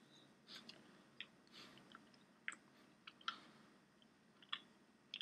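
Faint chewing of a Medjool date: the mouth works the fruit with scattered, irregular wet clicks and smacks.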